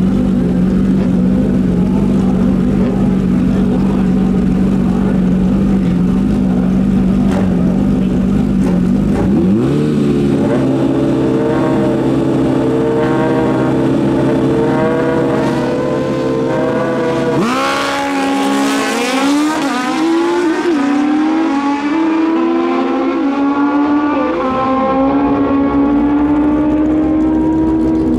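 Drag-racing motorcycle engines held at steady revs, stepping up in pitch about nine seconds in. Past the middle the revs jump sharply, then the pitch climbs with short drops, as at gear changes while a bike accelerates down the strip.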